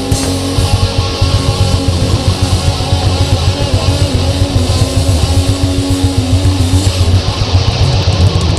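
Rock band playing live: loud electric guitar over bass and a fast, steady drum beat, with a long held, wavering guitar note through most of it.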